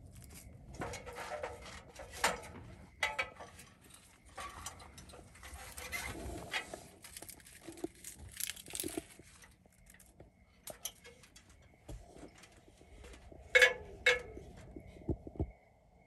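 Irregular rustling and handling noises as dragon fruit flowers and cactus stems are gripped and moved by hand, with two sharper knocks near the end. Faint steady insect chirring underneath.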